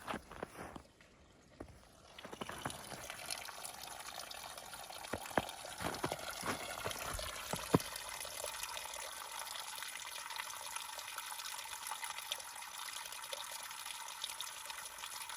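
Spring water trickling and splashing steadily. A few sharp knocks or steps sound in the first half, the loudest one a little before the middle.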